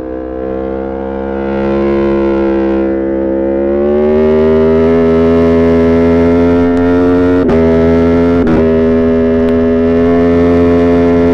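Aprilia Tuono V4 Factory's V4 engine, running at high revs under load on track through an Arrow GP2 exhaust with the dB killer removed. The loud engine note rises gradually over the first few seconds, then holds steady, with two brief sharp dips in pitch past the middle.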